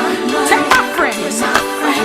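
Gospel music playing, a wavering melody line over steady sustained chords and a regular beat.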